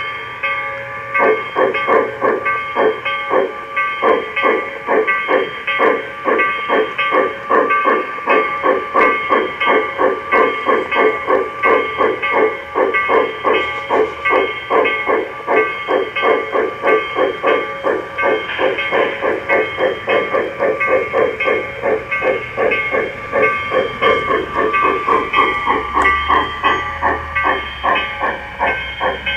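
Large-scale model Shay geared steam locomotive chuffing at an even, fast beat of about three chuffs a second while running along the track, over a steady hiss and hum.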